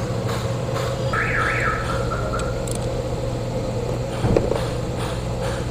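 A steady machine hum with a short pair of rising chirps about a second in, and faint scattered clicks.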